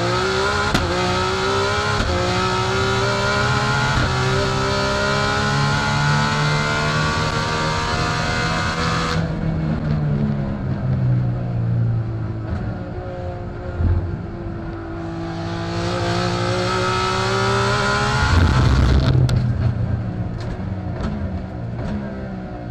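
Twin-turbo 2.8 L RB26 straight-six of an R34 GTR time attack car at full throttle, heard from inside the cabin: the pitch climbs steadily for about nine seconds, then drops suddenly as the driver lifts. It climbs again to its loudest near the end and then eases off, with a few sharp cracks.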